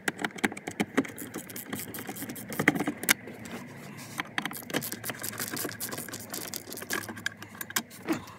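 Screwdriver undoing the glove box retaining screws: a run of irregular clicks and small metallic rattles against the plastic trim.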